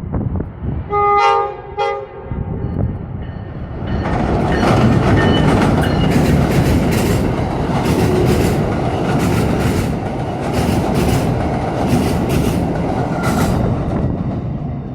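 An Amtrak AEM7AC electric locomotive's horn sounds a short blast and then a briefer second blast about a second later, as a warning to a track crew. A couple of seconds later the train passes close by at speed, a loud rush of wheels with regular clacking over the rail joints, fading near the end.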